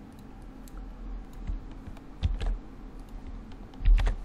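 Computer keyboard keys pressed a few times as separate sharp clicks, a small cluster a little past two seconds in and the loudest pair about four seconds in.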